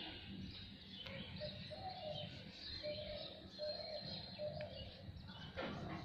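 Birds calling in the background: a run of short low notes repeating every half second or so, with a few higher chirps.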